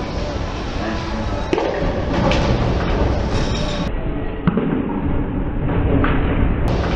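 Bowling ball rolling down a wooden lane with a steady low rumble, and a few sharp knocks as it reaches and strikes the pins.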